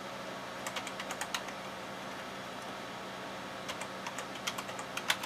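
Keys of a computer keyboard being typed in two short bursts of clicks, the second ending in the loudest keystroke, over a steady low hum.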